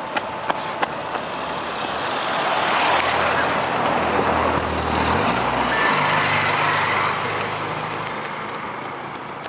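A motor vehicle drives past, its noise swelling and fading, with the engine's pitch changing about five seconds in.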